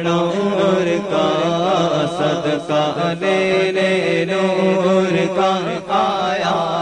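Naat sung as devotional chanting: a male voice carries a bending, melismatic melody over a steady, unbroken low drone.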